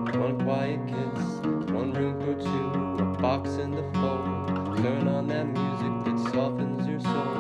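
Acoustic guitar strummed in a steady rhythm with a bass line under it, an instrumental introduction to a song.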